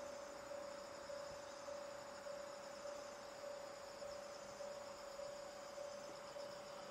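Insects trilling in the trackside vegetation, with a steady mid-pitched electronic tone that pulses a little under two times a second.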